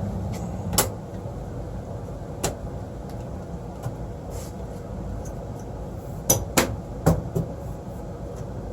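A newly installed 90% gas furnace running with a steady low hum, which drops in level after a knock about a second in. Several sharp knocks and clatters come over it, two close together a little past the middle.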